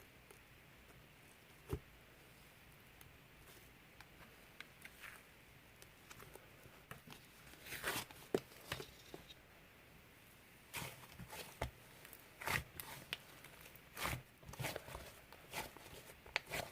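Cloud slime being stretched and squeezed by hand, giving faint, scattered crackles and soft tearing clicks that come thicker from about halfway in; a single soft knock near the start.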